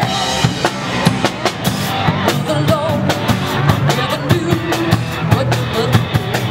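A live rock band playing: a drum kit keeping a steady beat under amplified electric guitars and bass guitar.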